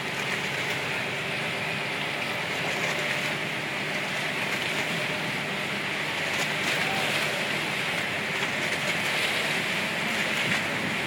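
Outrigger boat under way: a steady engine drone mixed with the hiss of water rushing past the hull.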